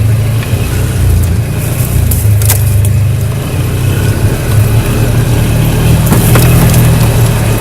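ATV engine running steadily with a low drone, with a few sharp knocks and rattles over it.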